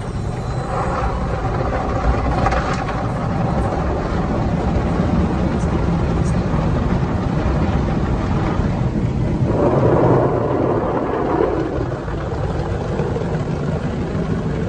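Automatic car wash machine spraying water over the car, heard from inside the cabin: a steady low rumble with swells of spray hissing against the roof and windscreen, loudest about ten seconds in.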